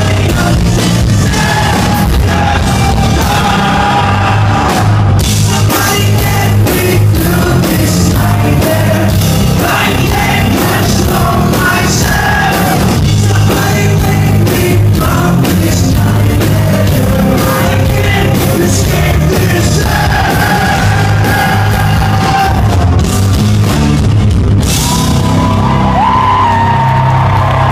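Live hard rock band playing loud through a venue's PA: distorted electric guitars, bass and drums under a male lead vocal that sings and shouts.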